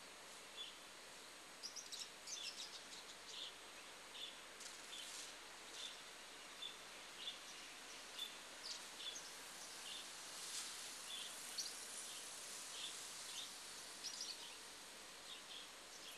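Faint outdoor ambience with steady hiss, a small creature chirping regularly a little faster than once a second, and scattered higher, quicker chirps.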